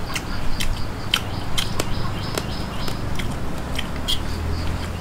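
Close-up eating sounds of a man chewing a mouthful of rice and curry with his mouth closed: wet mouth clicks and smacks about every half second.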